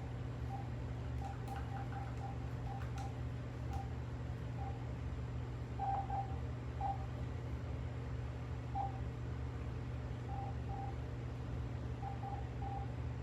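VTech CS6649 cordless phone handset giving short single-pitch beeps at irregular intervals, as its buttons are pressed, with faint clicks among them. A steady low hum runs underneath.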